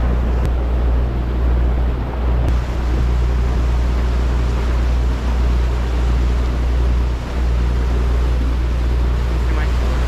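Motorboat engine running with a steady low rumble, under a constant rush of wind and water noise.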